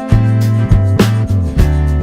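Background music: a guitar-led instrumental track with bass and a steady beat.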